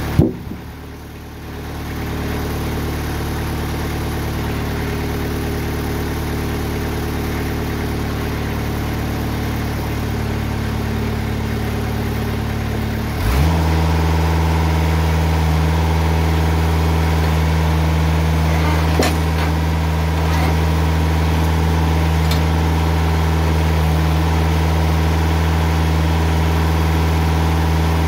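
TimberKing 2020 sawmill's engine running steadily at idle, then stepping up to a higher, slightly louder steady speed about 13 seconds in. There is a short thump at the very start, and a few faint knocks later on as the log is rolled over on the bed.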